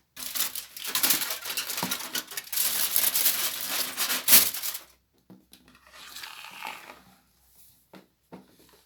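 Food packaging being crinkled and torn open by hand. Dense, loud crackling rustle for about five seconds, loudest just after four seconds, then fainter rustling that dies away.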